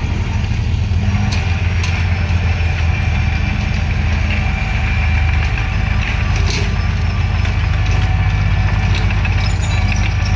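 Bulldozer's diesel engine running steadily with a deep, even hum, with a few light clanks.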